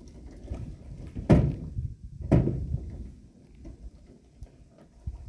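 Canoe hull being tipped and handled to drain water, giving two loud hollow thumps about a second apart among lighter knocks.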